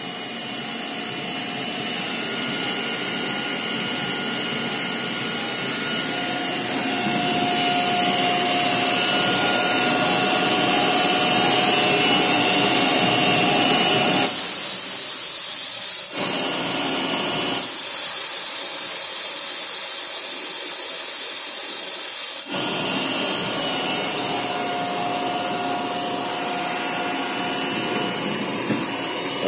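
CNC milling machine cutting a part: steady cutter and spindle noise with a faint whine. About midway, a loud high hiss comes on twice, once briefly and then for about five seconds.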